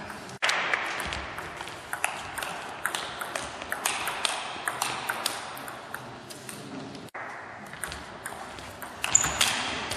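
Table tennis rally: the celluloid ball clicking off the players' bats and bouncing on the table in quick back-and-forth strokes, over steady hall noise.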